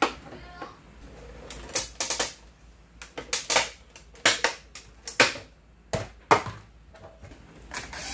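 Plastic clicks, snaps and knocks from an HP 8100 inkjet printer's housing being handled and pried apart, coming irregularly in quick clusters. Just before the end a cordless drill-driver starts to whir.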